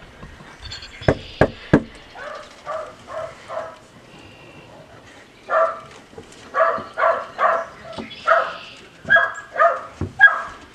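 Three quick knocks on a front door, then a dog barking: a short run of about four barks, a pause, and a longer run of about eight barks.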